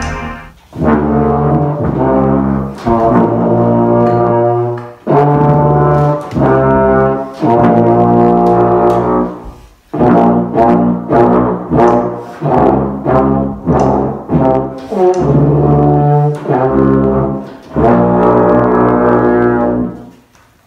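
A tuba and a smaller upright brass horn played together: a tune of held notes in short phrases, with brief breaks between phrases, the longest about ten seconds in.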